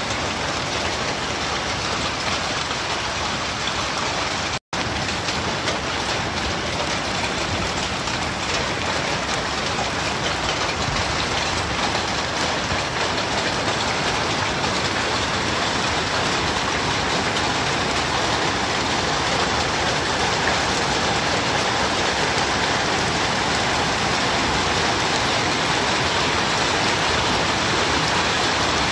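Rain and hail falling steadily: an even hiss, broken by a split-second dropout about five seconds in.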